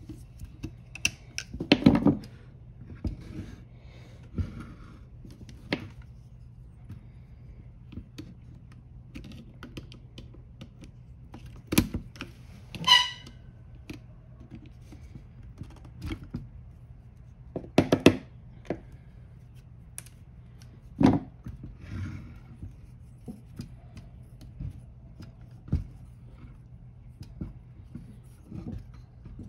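Hand tools and small metal carburetor parts clicking, tapping and knocking irregularly as the throttle linkages of a DFC328 carburetor are detached, with one brief metallic ring about 13 seconds in. A low steady hum runs underneath.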